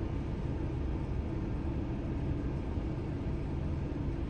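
Twin-engine wide-body airliner's jet engines running across the airfield, a steady low rumble.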